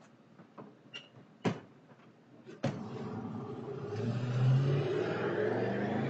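A car engine revs and accelerates away, starting suddenly a little under halfway in and growing louder. Before it come a few faint clicks and one sharp knock.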